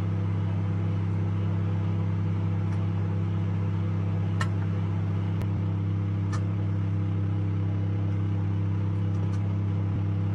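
Microwave oven running with a steady, even hum, with a few faint clicks around the middle.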